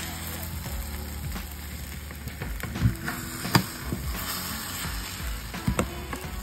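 Scrambled eggs sizzling in a nonstick frying pan while a silicone spatula stirs and scrapes through them, with a few sharper knocks of the spatula against the pan near the middle.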